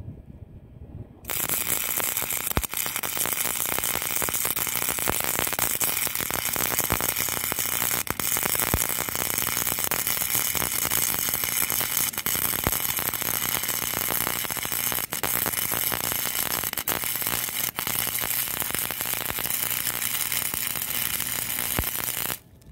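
Wire-feed welder arc crackling and sizzling steadily through one continuous weld bead on the mini bike's steel fork frame. It starts about a second in and cuts off suddenly just before the end.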